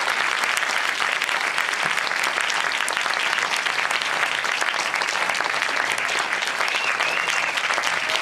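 Audience applauding steadily, a dense patter of many hands clapping in a cinema auditorium, welcoming an actor introduced on stage.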